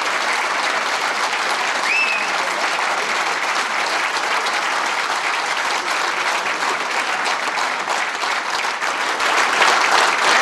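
Large crowd clapping steadily, with a single short high call rising above the applause about two seconds in and the clapping swelling a little near the end.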